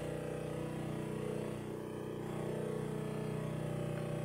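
Analog synthesizer drone: a steady stack of sustained tones whose upper part shifts slightly at the start and again about two seconds in.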